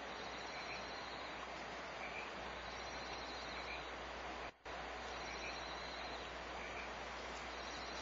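Steady hissing noise with faint, high, chirping trills every few seconds, broken by a brief dropout about halfway through.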